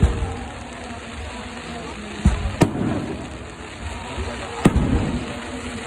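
Fireworks bursting: a bang right at the start, two more close together about two and a half seconds in, and another about four and a half seconds in, each trailing off with a crackling rumble.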